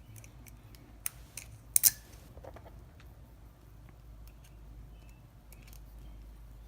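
Metal lock pick raking the pin tumblers of a Wilson Bohannon padlock: a few sharp metallic clicks in the first two seconds, the loudest just before two seconds in, then faint scattered ticks. The tumblers are being raked to reset the lock after it bound up.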